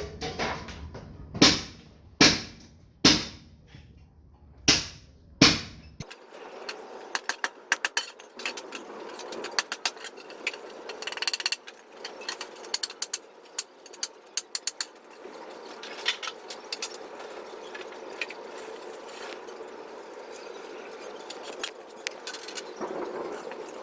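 Five loud, sharp metal-on-metal hammer blows, each ringing briefly, during work on an old Wilton bench vise. After an abrupt change about six seconds in, a long run of quick light clicks and scraping over a steady hum.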